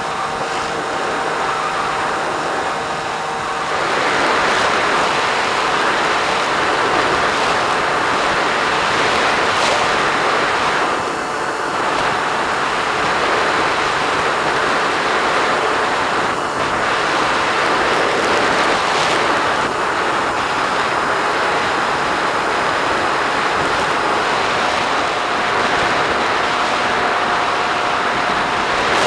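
Bixler foam RC plane in flight, heard from its onboard camera: a steady rush of air over the airframe and microphone, with the faint steady tone of its brushless electric motor. The rush grows louder about four seconds in.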